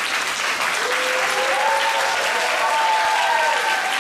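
Audience and choir applauding, a steady dense clapping, with voices calling out over it from about a second in.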